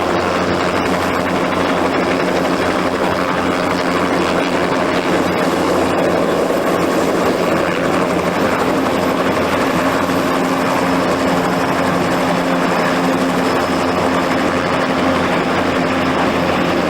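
Helicopter running on the ground, a loud, steady engine noise with a constant low hum that doesn't change.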